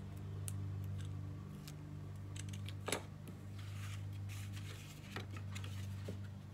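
Handling of stiff cardstock and a small craft tool: scattered light clicks and paper rustling, with one sharper click about three seconds in, over a steady low hum.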